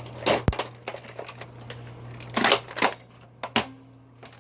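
Scattered clicks and knocks of hard plastic as a toy gun is picked up and handled. The loudest knock comes about two and a half seconds in, over a faint steady hum.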